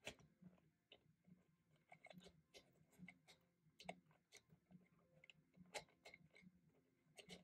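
Near silence: room tone with faint ticks about twice a second.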